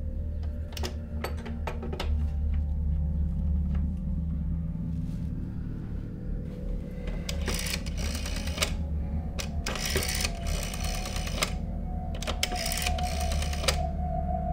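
Rotary telephone dial being wound round and let go, the dial spinning back with runs of rapid clicking, three times in the second half, after a few single clicks as the finger winds it. A low steady hum lies underneath.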